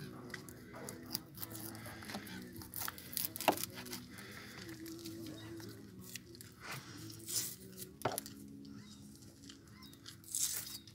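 Dried, salted bokkoms (mullet) being cleaned by hand: the stiff skin and flesh tear and crackle in irregular bursts, with a couple of sharp cracks.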